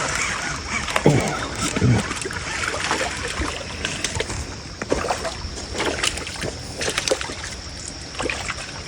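Water splashing and sloshing, with irregular knocks and splashes throughout.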